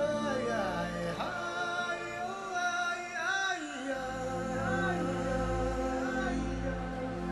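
Background music: a voice singing a slow melody with gliding, ornamented notes over sustained tones, and a low drone coming in about four seconds in.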